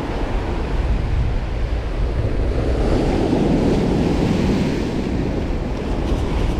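Ocean surf breaking and washing up a sandy beach, with a louder wave crashing about three seconds in. Wind rumbles on the microphone.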